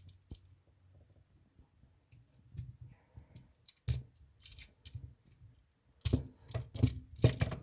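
Scattered clicks and scraping knocks of a GFCI receptacle being forced into a tight wall outlet box, with a sharp click about four seconds in and a run of louder knocks near the end as it is worked into place.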